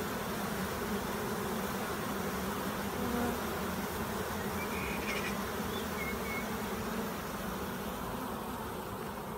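A large honeybee swarm humming steadily as it is run into a hive, the bees walking in across a sheet without fighting. The hum eases slightly near the end.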